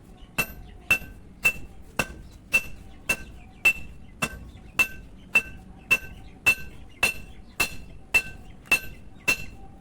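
Steady hand-hammering on a blacksmith's anvil, forging a steel power-tiller blade into a boti. There are about two even blows a second, each a sharp ringing clink of hammer on steel.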